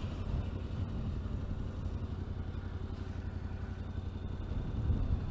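Yamaha Ténéré 700's parallel-twin engine running steadily on its stock exhaust while riding, with wind noise over it.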